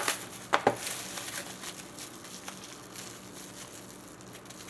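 A sealed box of hockey trading cards being handled and unwrapped: two sharp clicks within the first second, then faint crinkling and rustling that fades away.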